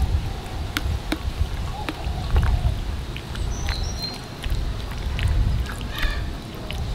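Metal spoon stirring marinated meat in a plastic tub, with scattered small clicks and wet scrapes as it knocks the sides, over a low, uneven rumble.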